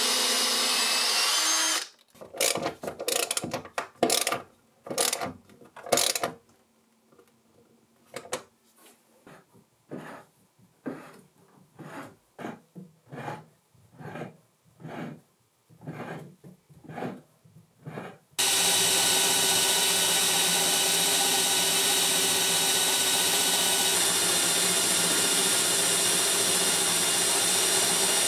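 A cordless drill drilling into the metal of a cast bench vise, stopping about two seconds in. Then a run of short separate strokes about once a second, strong at first and fainter after a few seconds. From about 18 seconds on, an electric drill in a drill guide bores steadily into wood.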